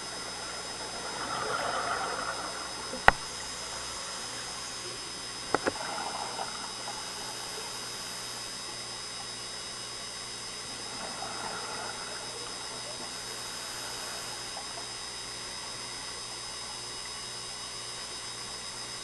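Underwater scuba sound: a diver's exhaled bubbles from the regulator gurgling in bursts about ten seconds apart, over a steady hiss. A single sharp click comes about three seconds in, and a quick double click near six seconds.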